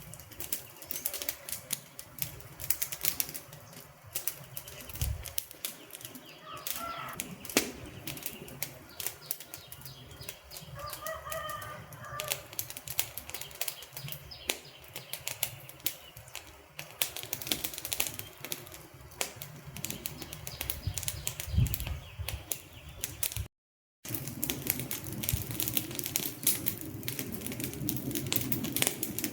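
Wood fire crackling, with a steady stream of sharp pops and snaps. The sound cuts out completely for a split second about two-thirds of the way through, then resumes with denser crackling.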